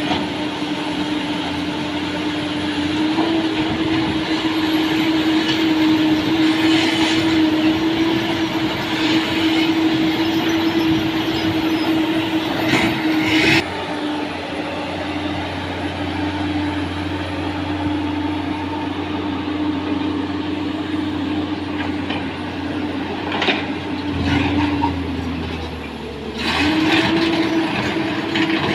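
Excavator working: a steady engine drone with a noisy clatter over it and a few sharp metal knocks. The drone drops about 24 seconds in and picks up again a couple of seconds later.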